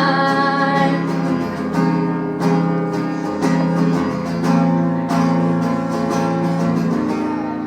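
Acoustic guitar strumming steady chords through an instrumental break in a song, just after a sung line ends on the word "fine".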